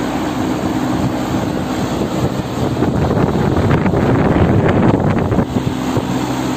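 Two condenser fan motors on a York chiller running: a steady motor hum under the rush of moving air. Wind buffets the microphone, loudest in the middle.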